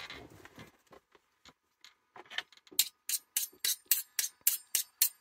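A rapid series of about a dozen sharp clicks, coming faster toward the end, from a source that nobody names.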